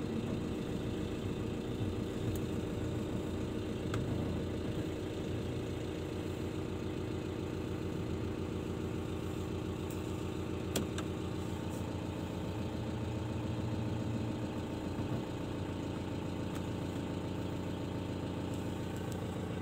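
Vehicle engine idling with a steady low hum; a single sharp click about eleven seconds in.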